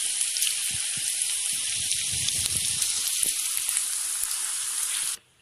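Masala-coated okra pieces deep-frying in hot oil in a kadai: a steady sizzle with fine crackles. It cuts off suddenly near the end.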